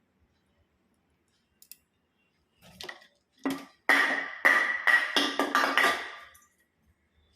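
Metal kitchen utensils clinking: a spoon striking a metal bowl about eight times in quick succession, each knock ringing briefly.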